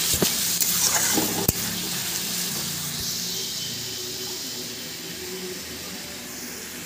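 Onion-tomato masala sizzling in oil in a kadai as a spatula stirs and scrapes it, with a couple of sharp knocks of the spatula on the pan in the first two seconds. The sizzle eases off gradually. The masala is being fried down (bhuna) and kept from sticking.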